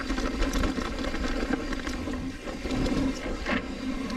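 Mountain bike riding over a dirt trail: steady rumble and rush with scattered rattling clicks.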